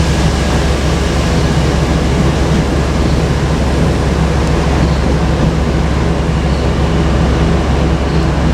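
Steady loud rumble of a JR Kyushu 817 series electric train running, with a low hum underneath.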